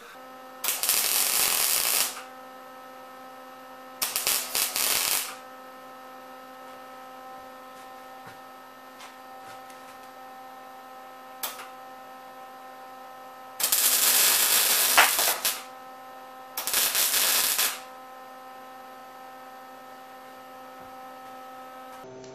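Wire-feed (MIG) welder laying four short welds, each a crackling sizzle of one to two seconds, on a steel fuel-pressure-regulator fitting. Between the welds a steady electrical hum.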